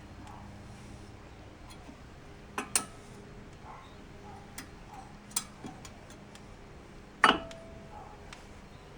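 A few sharp metallic clicks and clinks as a new brake pad is worked into the caliper bracket's pad clips. The loudest comes near the end and rings briefly.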